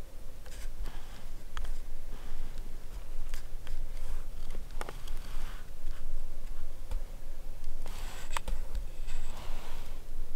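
Scattered clicks and soft rustling of dry brush and grass as a handheld camera moves through it, over a steady low rumble on the microphone. The rustling is busiest about eight seconds in.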